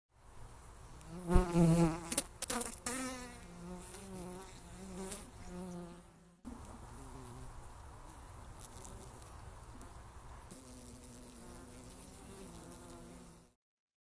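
Honeybees buzzing around the hives, with single bees flying close past and their hum wavering in pitch, plus a few sharp clicks in the first few seconds. The buzz breaks off about six seconds in and comes back as a fainter, steadier hum.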